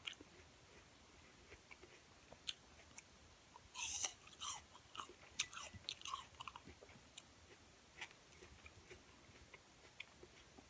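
Close-up chewing of raw apple slices: faint crunching and mouth sounds, with a louder run of crunches about four seconds in.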